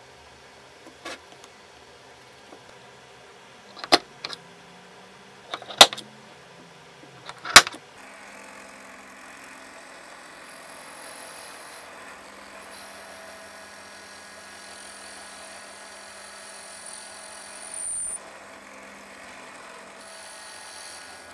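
A few sharp knocks, the loudest about four, six and eight seconds in. Then a pillar drill runs steadily with an even hum, its bit boring a hole in a wooden clamp-jaw block.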